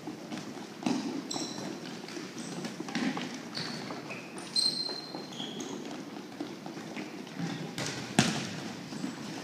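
Sneakers squeaking and feet shuffling on a gym floor as volleyball players run a setting drill, with several sharp thumps of the ball, the loudest about eight seconds in.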